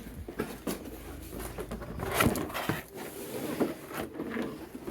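A cardboard box being handled and opened, with tape pulled off it. There are scattered rustles, scrapes and light knocks, and the sharpest knock comes a little over two seconds in.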